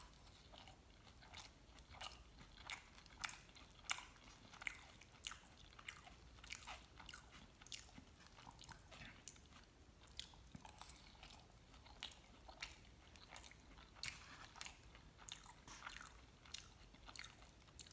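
Faint close-up chewing of mole chilaquiles, tortilla chips in sauce, heard as a steady run of soft crunches and mouth clicks.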